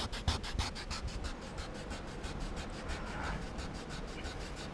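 Fire plow: a pointed hardwood stick rubbed rapidly back and forth along a groove in a dry log, a fast even rhythm of scraping strokes several times a second. The friction works up hot wood dust toward an ember, to start fire.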